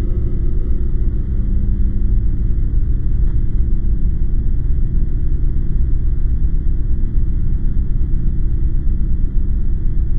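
Steady low rumble without any clear pitch or distinct events.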